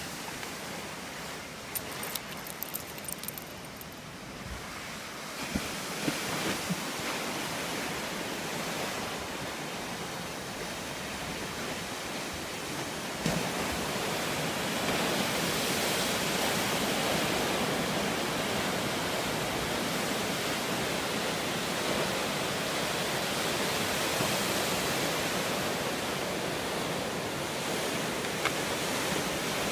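Lake waves breaking on the shore: a steady wash of surf that grows louder about halfway through, with a few small clicks in the first few seconds.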